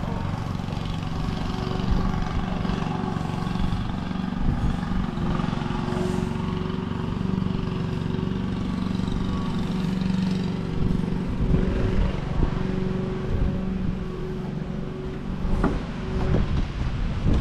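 A motor running steadily with a low, even hum, with a few sharp knocks near the end.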